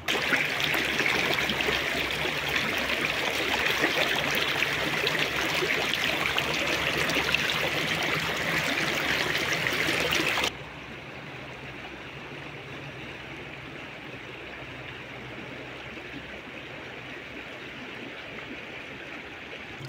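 Shallow stream water rippling and splashing over rocks, heard close up as a loud, even rush. About ten seconds in it cuts off abruptly, leaving a much quieter steady hiss.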